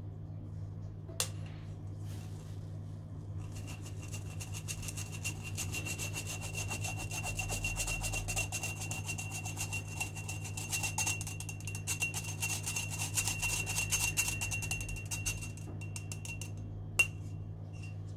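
Electric mixer running with a steady hum. From about three seconds in until near the end, its beaters scrape and rub against the bowl. Two sharp knocks come, one about a second in and one near the end.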